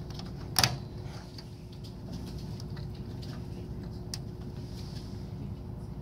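A single sharp click about half a second in as a DDR2 memory module is pressed home into its motherboard slot and the retention clips snap shut, followed by a few faint ticks over a steady low hum.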